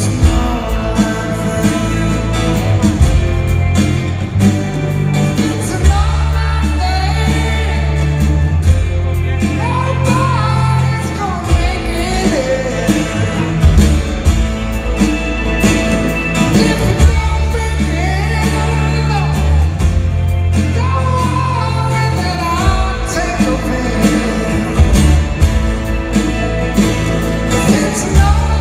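Live rock band performing a slow song: male lead vocal over guitars, bass and drums, heard from the audience with the echo of a large arena.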